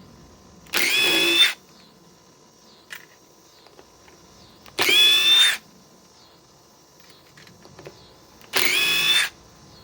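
Metabo WH18DDX 18-volt cordless impact driver run in three short bursts of under a second each, backing screws out of an old tree stump. Each burst is a high motor whine that rises slightly in pitch.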